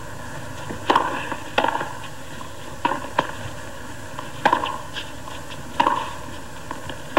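A tennis rally: racquets strike the ball back and forth, sharp pops a second or so apart, with the ball's softer bounces between them, over a hushed crowd.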